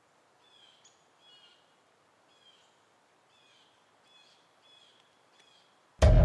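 A string of short, faint bird chirps, repeated irregularly about twice a second. Near the end a loud, deep music drone cuts in suddenly.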